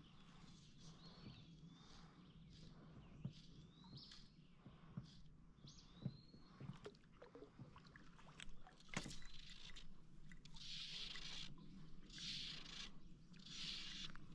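Faint river-valley ambience: a bird calling with slurred, sliding whistles, a few light knocks, and from about ten seconds in a run of hissy bursts about a second long, repeating roughly every second and a half.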